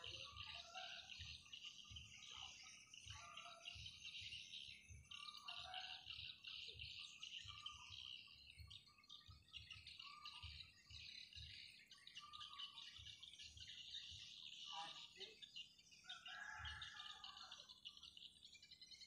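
Faint birds chirping and calling over a steady high-pitched chorus, with irregular low rumbles underneath.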